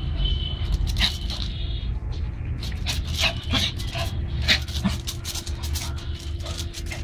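Pomeranian dog making a run of short, sharp sounds right at the microphone, several a second, densest in the middle, over a low rumble.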